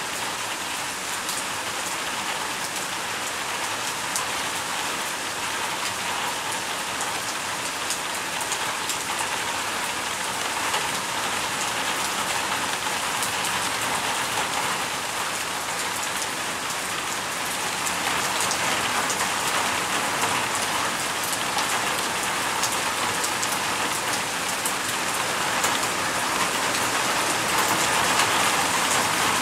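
Rain falling steadily: an even hiss full of small drop ticks, growing a little louder about two-thirds of the way through.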